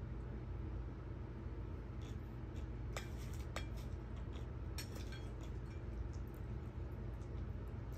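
Cutlery clicking and clinking against a dish while eating: a few sharp clicks, mostly between about three and five seconds in, over a steady low hum.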